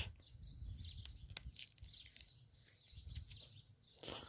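Faint birds chirping here and there, with a few soft clicks.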